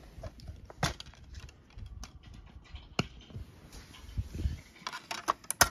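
Plastic clicks and knocks from a DVD case and disc being handled and opened, with the rustle and rumble of hands and bedding against the microphone. Sharp clicks come about a second in and again around three seconds, with a quick run of clicks near the end.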